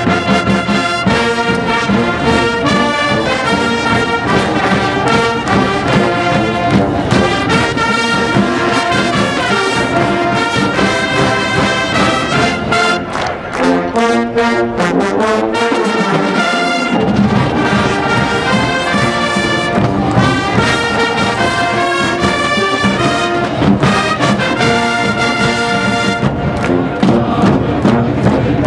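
Marching band playing loud brass over drums. The bass drops away for a few seconds about halfway through, then comes back.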